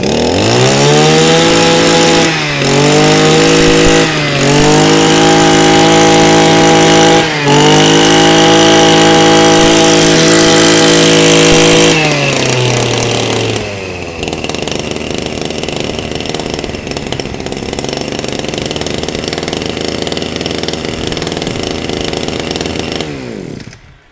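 Shindaiwa Soft 2200 22 cc two-stroke brush cutter engine just started, revved high with its pitch dipping briefly three times. About twelve seconds in it drops to a steady idle, and it cuts off shortly before the end.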